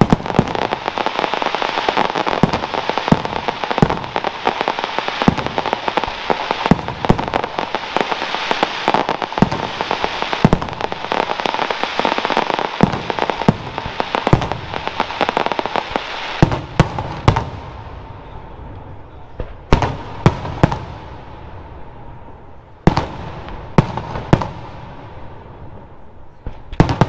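Aerial firework shells bursting overhead. For about the first sixteen seconds it is a dense, rapid run of bangs and crackle. After that it thins out to single loud bangs, a second or two apart.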